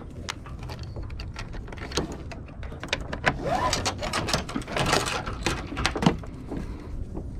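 Synthetic rope being handled and pulled through a block on a small sailboat's fibreglass deck: a run of rubbing and rattling with many sharp clicks, busiest in the middle, and a brief rising squeak about three and a half seconds in.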